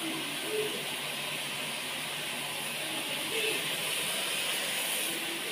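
A steady hissing noise with no clear source, with a few faint brief tones in the background.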